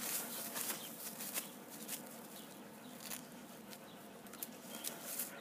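A dog's front paws scratching and raking through dry grass and loose soil as it digs, in irregular quick scrapes.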